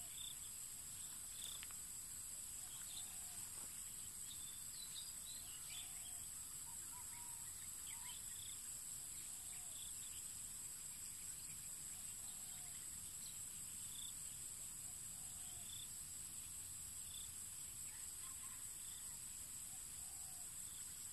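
Insects droning steadily at a high, even pitch, with short scattered chirps over the top.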